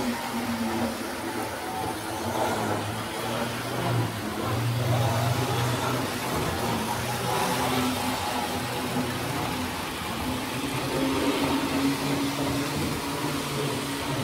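Tri-ang Hornby 00-scale model trains running on the layout: a continuous mechanical running noise with a low electric motor hum.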